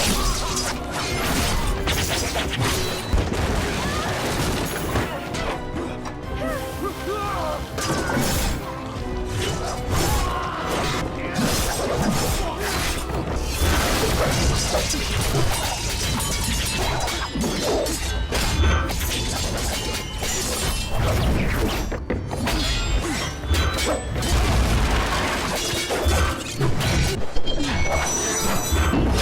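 Martial-arts film fight soundtrack: dramatic score music mixed with repeated impacts, crashes and shattering.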